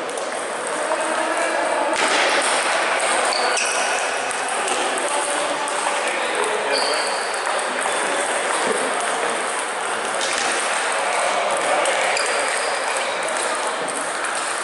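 Busy table tennis hall: ping-pong balls clicking off bats and tables at several tables, over a murmur of voices echoing in the hall.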